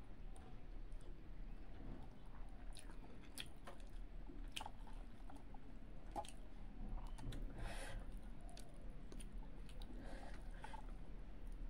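Close-miked chewing of a mouthful of rice and fish, with scattered small wet clicks and smacks, and a short noisy squish about eight seconds in.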